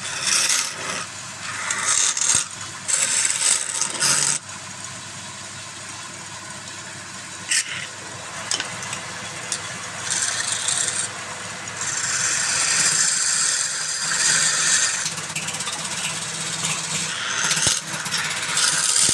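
Wood lathe running with a steady low hum while a turning tool cuts the spinning wood in repeated bursts of scraping, the longest lasting about three seconds past the middle.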